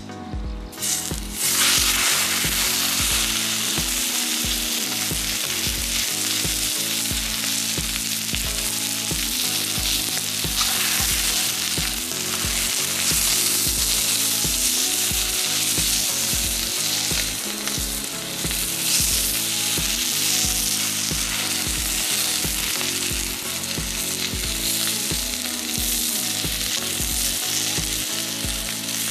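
Food frying and sizzling hard in a pan over a wood fire, the sizzle starting about a second in and running steadily. Background music with a steady low beat plays under it.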